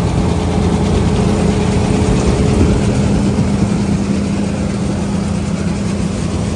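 A large engine running steadily at a constant speed: a loud, even low drone that holds one pitch.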